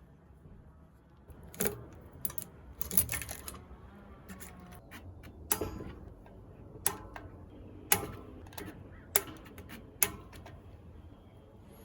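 Sharp metallic clicks and clinks of hand tools and parts at irregular intervals, about seven in all, during work on a mountain bike's disc brake.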